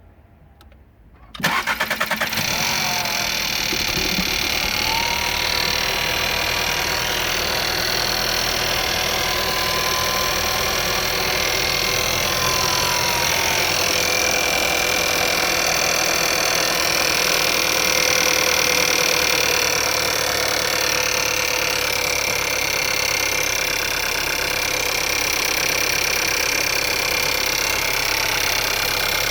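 A 2017 Skoda Octavia's 1.4 TSI (CZDA) turbocharged four-cylinder petrol engine is started about a second and a half in and then runs steadily at idle. This is the running sound the owner finds strange, its cause unnamed.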